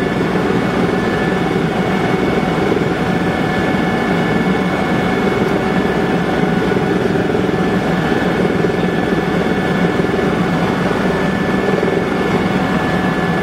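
Cabin noise of a Eurocopter EC120 Colibri helicopter in flight: its Turbomeca Arrius turbine and rotors run steadily, a dense rumble with a thin, steady high whine above it.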